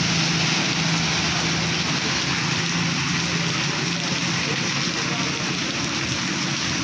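Heavy rain pouring onto a paved street and standing water, a steady hiss, with a low engine hum from passing traffic underneath.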